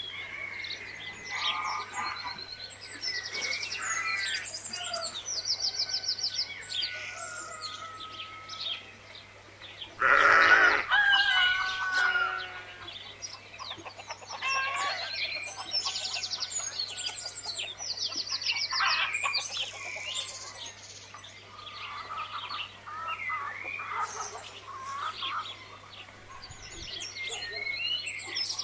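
Many small birds chirping and trilling in quick, overlapping calls, with a louder farm-animal call about ten seconds in. A faint steady hum runs beneath.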